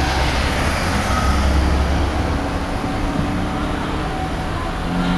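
Truck engine running close by: a steady low rumble that is strongest for the first couple of seconds, then eases a little.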